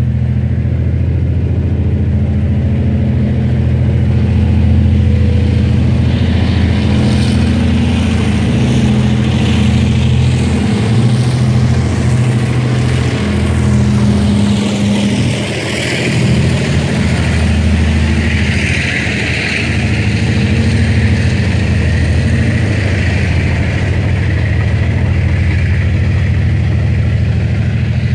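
A train led by a diesel locomotive, with the CT273 steam locomotive in its consist, going by under power: the diesel engine runs with a steady low drone while the train passes closest about halfway through, followed by a hiss of wheel and rail noise.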